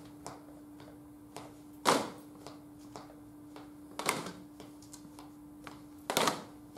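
A group of people tapping a rhythm together on handheld percussion: a loud ensemble strike about every two seconds, with lighter scattered taps in between. A steady low hum runs underneath.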